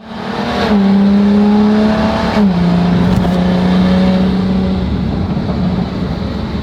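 BMW M440i's B58 turbocharged inline-six running loud through an Armytrix catless-downpipe valvetronic exhaust, holding a steady note that steps down in pitch twice, about a second in and again near the middle, then fades into a rougher, noisier sound.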